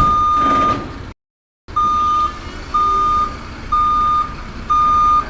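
Truck reversing beeper sound effect: a single steady high tone beeping about once a second, five beeps, over a low vehicle rumble, with a short gap after the first beep.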